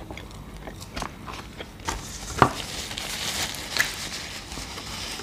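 Close-up chewing and biting of burgers and fries, wet mouth clicks and smacks, with a sharper click about two and a half seconds in.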